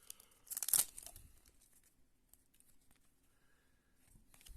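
Plastic trading-card pack wrapper crinkling and tearing: a rustling burst about half a second in, faint ticks of cards being handled, then another short rustle near the end.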